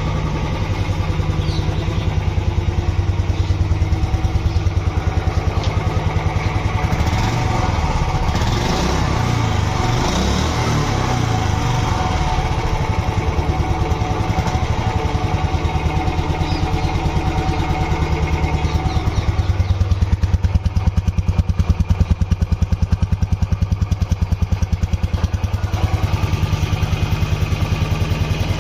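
Royal Enfield Bullet 350's single-cylinder engine running through its exhaust with a steady beat. It is revved up and down a few times from about a quarter to almost halfway through, then settles back, and the exhaust beat grows stronger in the last third.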